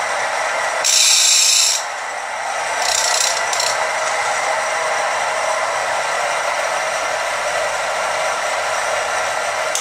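Homemade tool grinder running: its electric motor and belt-driven grinding wheel give a steady whir with several steady tones. A louder high hiss breaks in about a second in and lasts about a second, and a shorter one follows about three seconds in.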